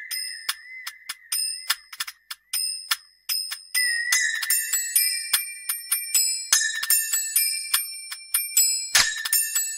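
Instrumental music opening a Hindi film song: a quick run of ringing, bell-like strikes over a high wavering held note. The texture fills out about four seconds in, and a fuller, deeper hit comes near the end.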